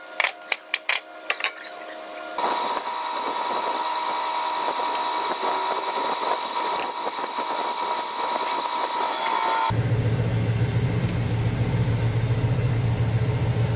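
Metal tools clinking and knocking, then several seconds of a steady machine whir with a high hum. About ten seconds in, the tractor's diesel engine cuts in, idling steadily.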